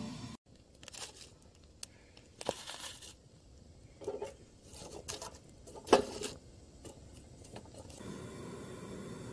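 Quiet, irregular crackles, scrapes and rustles at a campfire: split logs burning over embers in a metal fire pit while tongs work in it.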